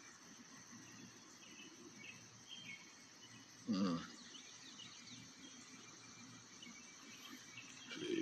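Faint outdoor ambience with a few short, high chirps, and one brief louder sound about four seconds in.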